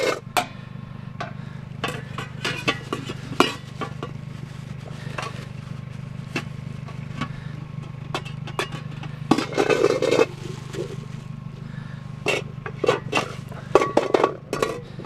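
Metal pots and pans knocking and clanking together in bursts as they are pulled apart and out of a bag, over the steady low hum of an idling vehicle engine.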